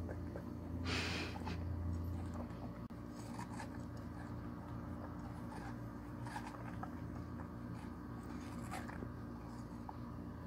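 Husky-schnauzer mix dog chewing and biting a watermelon rind: irregular wet crunches and clicks of teeth on rind, the strongest about a second in, over a steady low hum.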